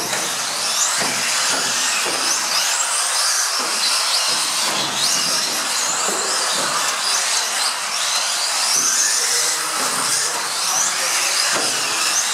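Several small electric RC off-road cars racing: the high whine of their motors and drivetrains rises and falls as they accelerate and brake, with several whines overlapping.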